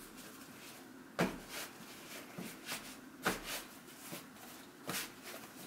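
Hands rolling and pressing yeast dough on a floured kitchen worktop: soft rubbing with a few short dull thumps, about a second in, around three seconds in and near the end.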